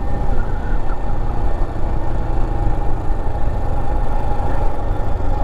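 Motorcycle engine running steadily while riding, with a constant low rumble of road and wind noise.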